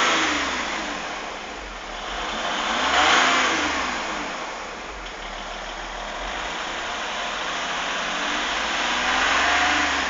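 Vehicle engine revved up and let fall back toward idle, over and over: the revs are dropping as it begins, rise and fall again about three seconds in, and climb once more near the end. A noisy rush swells with each rev. This is the noise on acceleration that the owner is showing.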